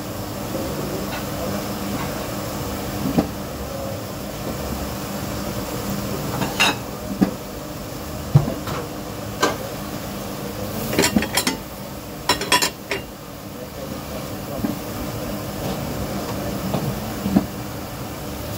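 Dishes and cutlery clattering in scattered sharp knocks, with a busier run of clatters around the middle, over a steady hum of kitchen equipment.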